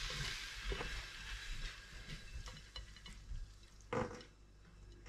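Hot crab and abalone mixture being scraped out of a non-stick frying pan onto a tortilla, with a faint sizzle that fades and light scraping clicks. A sharper knock about four seconds in.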